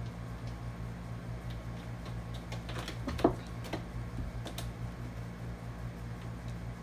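A cat clambering up into the carpeted tube at the top of a cat tree: a cluster of light scratches and clicks of claws on the fabric-covered wood, with one sharp knock about three seconds in. A steady low hum runs underneath.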